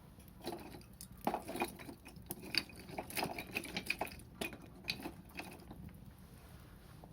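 Wood fire crackling, with a quick irregular run of sharp pops and snaps that thins out after about five seconds.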